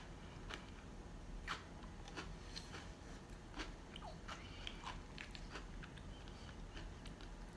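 Faint close-up eating sounds of yogurt taken from a plastic spoon: soft wet lip smacks and mouth clicks, irregular at about two a second, with the spoon scooping in the plastic cup.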